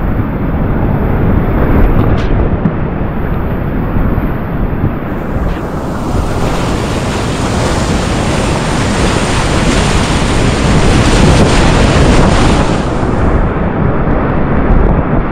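Whitewater rapids rushing loudly around a kayak, heard close up. The sound is duller and more muffled for the first few seconds and again near the end, then fuller in between.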